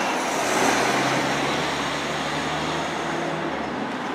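A vehicle passing nearby: a rushing hiss that swells about a second in, over a steady low engine hum that stops just before the end.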